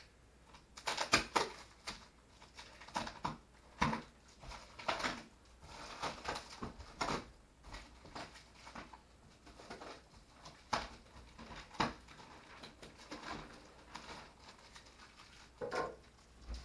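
Plastic wrapping of a rolled, compressed innerspring mattress crinkling and crackling as it is cut and pulled open by hand, in irregular rustles and taps.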